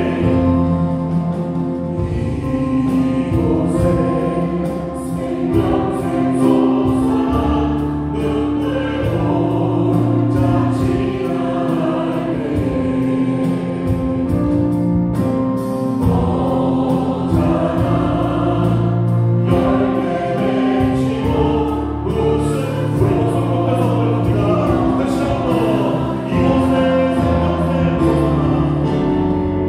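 Church choir singing a worship hymn with a praise band: Yamaha Montage 8 stage keyboard, electric bass guitar and drum kit, with steady cymbal and drum hits throughout.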